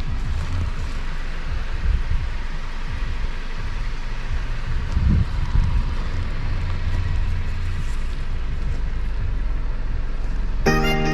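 Car driving along, a steady low rumble of engine and road noise; background guitar music starts near the end.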